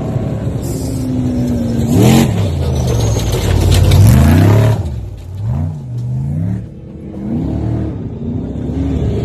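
Trophy truck engine revving at full throttle, its pitch climbing and dropping several times, with a loud rush of noise between about two and five seconds in, then shorter throttle blips near the end.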